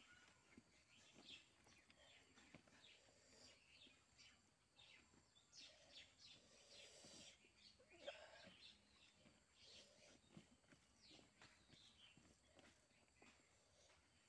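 Very faint birds chirping off and on, with soft eating sounds as rice and curry are mixed and picked up by hand.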